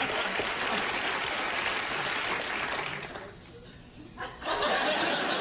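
Studio audience laughing and applauding. The sound drops away about three seconds in and comes back about a second later.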